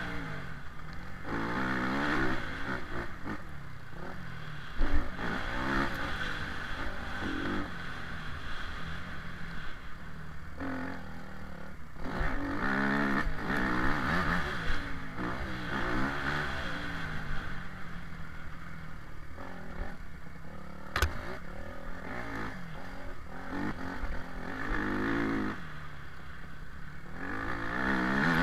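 Dirt bike engine revving up and down over and over as it is ridden along a rough trail. A single sharp knock comes about three-quarters of the way through.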